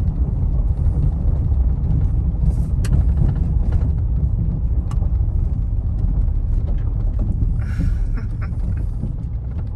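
Road noise heard inside a vehicle's cabin while driving slowly on a dirt and gravel lane: a steady low rumble from the engine and tyres, with a few sharp ticks.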